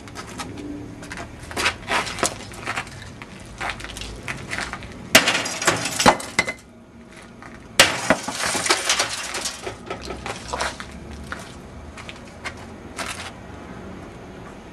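An oven being bashed: a string of knocks and clatters, with two loudest crashes about five and eight seconds in, each followed by a burst of clinking and rattling, then a few scattered knocks tailing off.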